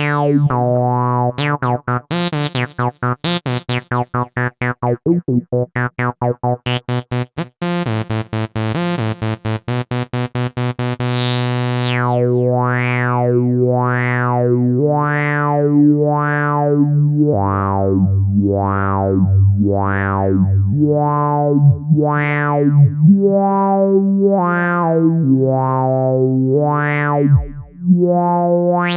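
GForce Oddity 2 software synthesizer, an ARP Odyssey emulation, playing a patch: first a fast run of short staccato notes, about four a second, then from about twelve seconds in a held bass line under notes whose brightness swells and fades roughly once a second.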